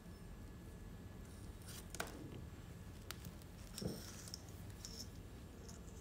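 Faint clicks and light taps of false nail tips being set down and shifted on a display stone, with two slightly louder knocks about two seconds and four seconds in.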